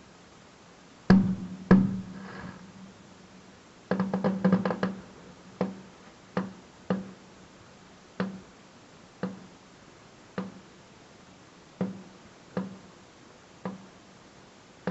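Firework shells bursting: two loud bangs about a second in followed by crackling, a rapid string of bangs around four seconds, then single bangs about once a second, each fading quickly.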